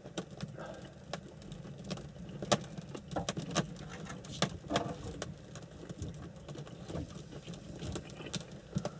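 Scattered light clicks and taps at irregular intervals, the sharpest about two and a half seconds in, over a low steady hum.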